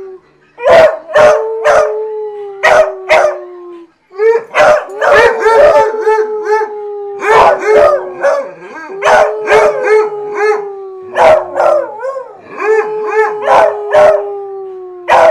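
A beagle and a basset hound howling together: long, overlapping howls that slide slowly down in pitch, broken up by short, sharp barks that come in quick twos and threes.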